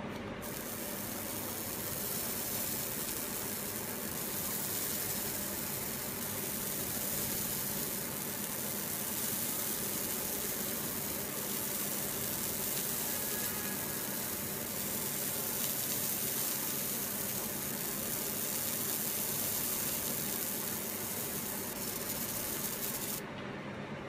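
Fiber laser marking machine engraving text into red plastic: a steady high hiss as the laser burns the surface, over a steady low machine hum. The hiss starts just after the beginning and cuts off suddenly near the end, when the marking finishes.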